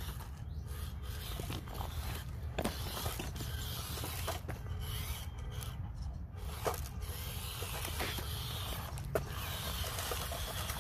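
Hobby Plus CR-18 1/18-scale RC crawler working over rough trail ground: tyres and chassis scraping and rubbing on rock and dirt over a steady low rumble, with a few sharp knocks.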